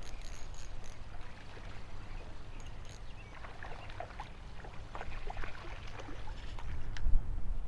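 Spinning reel being cranked to retrieve a hooked crappie, with wind rumbling on the microphone throughout. Scattered short high chirps and clicks come in from about three seconds on, and a sharp knock about seven seconds in is the loudest sound.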